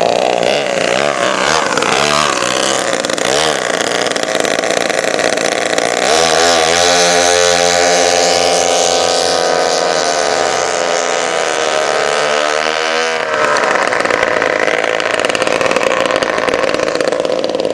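Twin Homelite two-stroke chainsaw engines on a go-kart running at high revs. The pitch swings up and down for the first few seconds, holds a strong, fairly steady note from about six seconds in, and changes to a different steady sound about thirteen seconds in.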